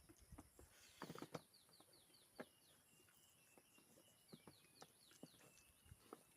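Faint bird chirping: two quick runs of short, high, downward-sliding notes, about five or six a second, with scattered soft clicks and taps.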